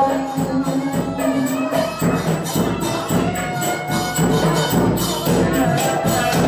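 Thai folk-style music accompaniment to a lae chant, with steady percussion strokes and a held note that drops away about two seconds in.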